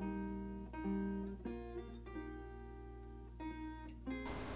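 Intro music of plucked guitar notes, each ringing on before the next starts about every second. Near the end a steady hiss comes in under it.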